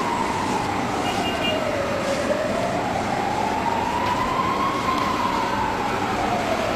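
Emergency vehicle siren wailing, its pitch slowly rising and falling in long sweeps, over a steady background hiss.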